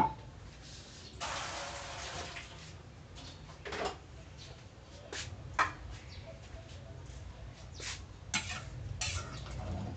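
Clay mortar and its wooden pestle being handled: a sharp knock at the start, a short hiss of liquid being poured about a second in, then scattered knocks and clinks against the mortar over a low steady hum.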